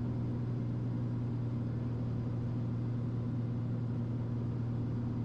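Piper Malibu's single piston engine and propeller droning steadily at reduced pattern power, heard from inside the cabin.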